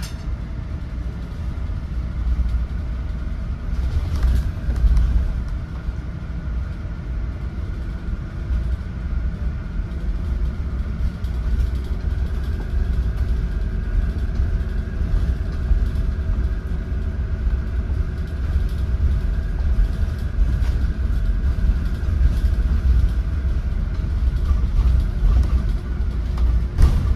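A Shenzhen electric sightseeing bus in motion, heard on board: a steady low road rumble with a faint motor whine.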